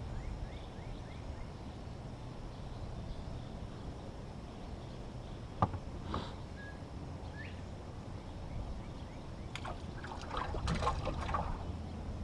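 Small fishing boat on the water: a low, steady rumble with a single sharp knock about five and a half seconds in, and a cluster of clicks and rattles from fishing gear being handled near the end.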